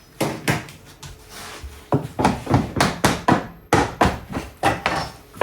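A series of sharp wooden knocks and taps: two near the start, then from about two seconds in a quick run of about three a second.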